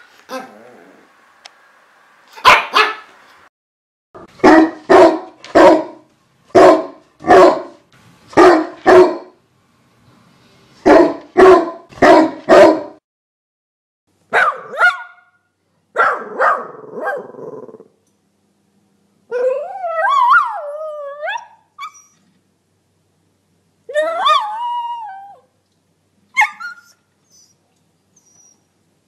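Dog barking in a run of sharp, evenly spaced barks, then, about halfway through, breaking into irregular yips and wavering whines that slide up and down in pitch.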